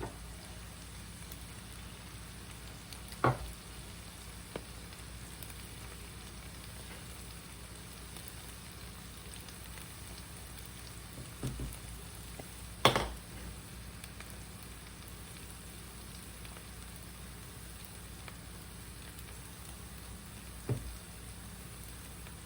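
Garlic sizzling in butter and olive oil in a frying pan, a steady frying hiss, with a few sharp knocks, the loudest about halfway through.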